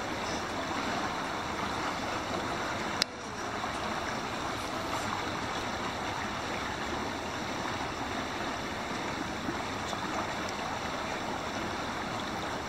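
River water flowing steadily past the bank, a constant rushing noise. A single sharp click sounds about three seconds in.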